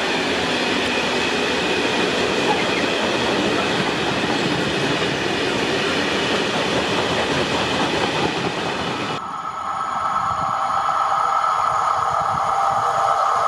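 A train running past with a loud, even rushing noise. About nine seconds in the sound changes abruptly to a steadier train sound with a few held, whining tones.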